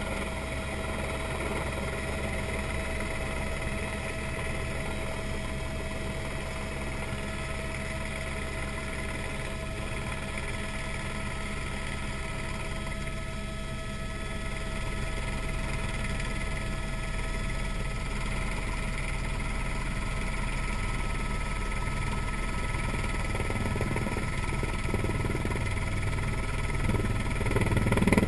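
Helicopter in flight: steady engine and rotor noise with a few steady whining tones, growing louder near the end.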